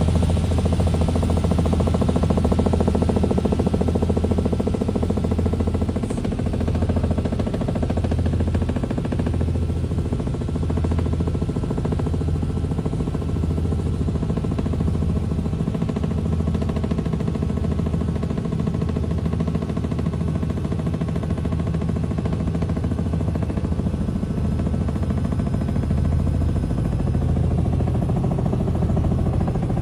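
A vehicle running steadily, its low engine hum throbbing about once a second over a constant rumble.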